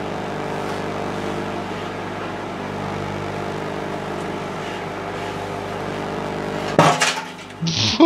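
Microwave oven running with a steady electrical hum while a raw egg in its shell heats, then, about seven seconds in, the egg explodes with one sharp, loud bang; the hum drops out just after.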